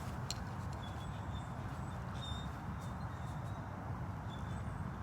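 Quiet steady background noise, mostly low in pitch, with a few faint clicks.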